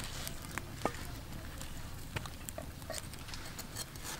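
A handful of sharp, separate taps and clicks from a steel cleaver cutting into the rind of a whole jackfruit.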